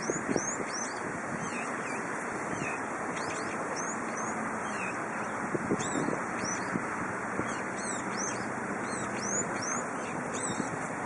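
Steady wind noise on the microphone, with many short, high chirps from birds scattered throughout.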